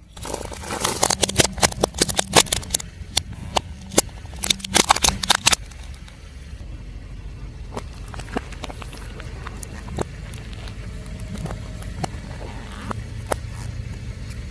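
A car tyre rolling over and crushing crunchy objects: a dense run of cracks and snaps for the first six seconds or so, then sparser crackles, over the low running of the car's engine.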